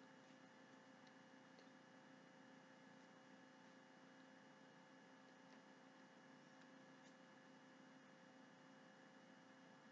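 Near silence: room tone with a faint steady electrical hum and a few faint ticks.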